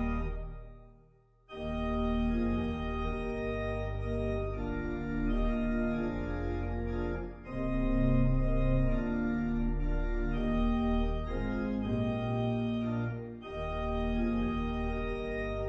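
Organ playing slow, held chords. The sound fades away just after the start, a new chord comes in sharply about a second and a half in, and brief breaks between phrases come near the middle and again near the end.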